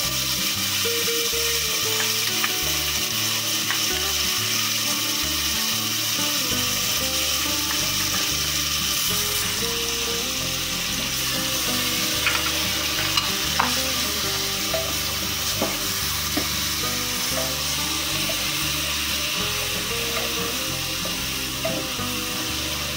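Garlic paste sizzling and frying in hot oil in a pressure cooker, stirred with a wooden spatula. There are a few sharp clicks of the spatula against the pot about halfway through.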